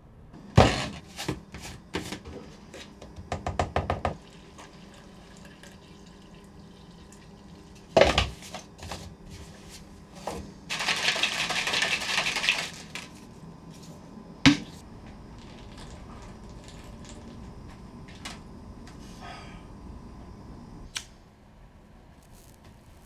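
Household sounds in a quiet room. A knock and a run of rattling clicks come near the start, then another knock, then about two seconds of water running from a kitchen tap. A sharp clack and a single click follow later.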